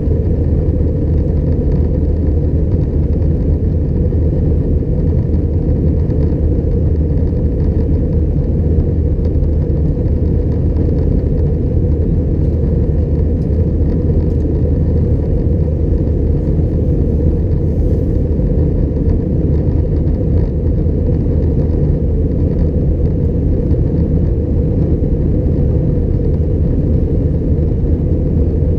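Steady low cabin drone of an Airbus A320-211 in flight, with its CFM56 engines and the airflow over the fuselage making a deep rumble that holds even throughout.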